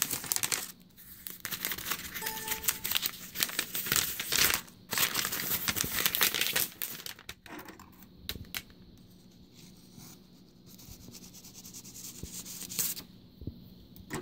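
Packing tape and cardboard flaps being torn open by hand, with paper rustling and crinkling. The tearing is loud and dense for the first seven seconds or so, then gives way to quieter rustling of kraft wrapping paper, with a short louder rustle near the end.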